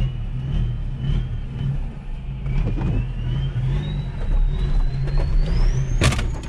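Four-wheel-drive ute's engine running under load while reversing off-road, with a whine that climbs steadily in pitch as it is given more throttle and a few scattered knocks. About six seconds in, one loud sharp crack as the vehicle strikes a tree, the hit that smashes the mirror's back cover.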